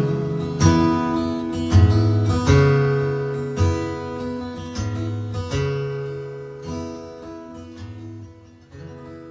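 Acoustic guitar playing the closing bars of a song: a string of plucked notes and strums over a held chord, growing steadily quieter and left to ring out near the end.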